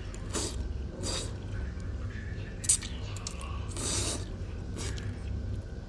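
A man slurping stir-fried beef lamian noodles off chopsticks: several short wet slurps, the longest about four seconds in. A sharp click, the loudest moment, comes about two and a half seconds in.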